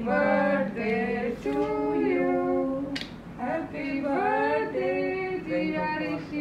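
A female voice singing a melody in long held notes that slide between pitches, with a single sharp click about three seconds in.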